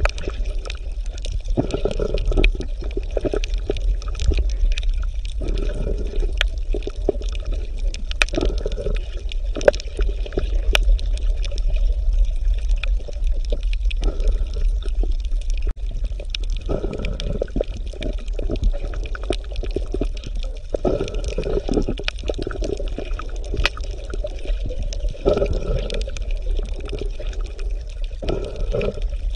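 Underwater recording: bursts of bubbling every few seconds over a steady low rumble, typical of a scuba diver's exhaled regulator bubbles, with faint scattered clicks.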